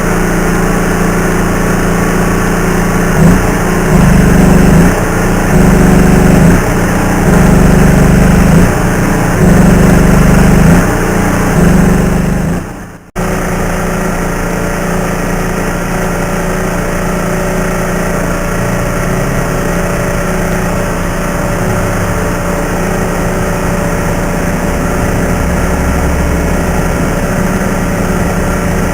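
A loud, steady machine drone with a low hum. It swells in about five second-long surges, cuts out sharply about halfway through, then runs on steadily.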